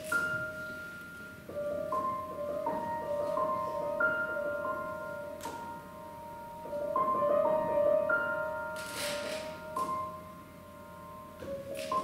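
Live jazz quartet music: a slow opening of long, ringing sustained notes that change pitch every second or two.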